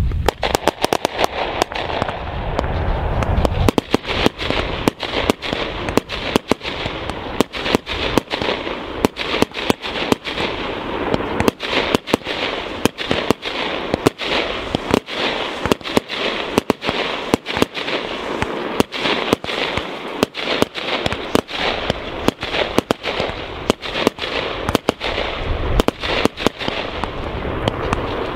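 Fireworks display: fountains hissing and crackling, with a rapid, irregular string of sharp bangs from aerial bursts.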